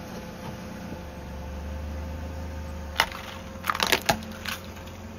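Car tyre rolling slowly onto small plastic toy cars and crushing them: a sharp crack about three seconds in, then a quick cluster of plastic cracks and snaps a second later. A low engine hum runs underneath.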